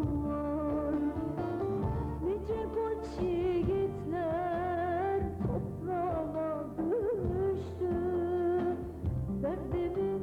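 Turkish pop-folk song sung by a woman, her long held notes wavering in a wide vibrato over a full band backing.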